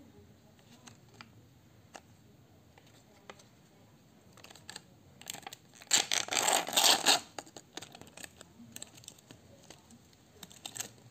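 Printed backing lid being peeled off a clear plastic blister tray of gummy candy: a loud tearing crackle about six seconds in, lasting just over a second. Light clicks and rustles of the plastic pack being handled come before and after.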